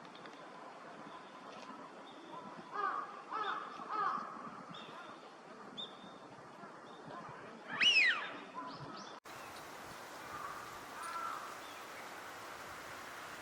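Eurasian wigeon calling: three short, lower calls in quick succession a little under three seconds in, then one loud whistle that sweeps up and falls away, the drake's 'whee-oo', about eight seconds in.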